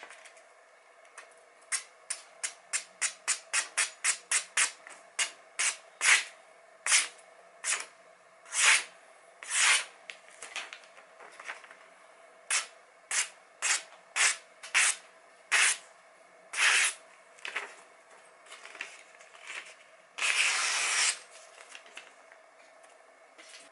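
Sharp Masamoto santoku blade slicing through hand-held sheets of paper in a long run of short cutting strokes. The strokes come about three a second at first, then slow to roughly one a second, with one longer stroke near the end. The cuts are a test of the edge's sharpness.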